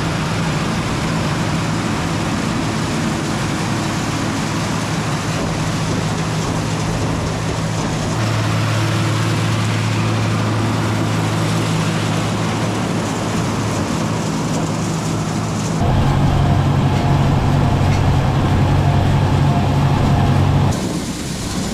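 Tractor engines running steadily in several short clips, each with a steady hum. The sound changes abruptly about 8, 16 and 21 seconds in.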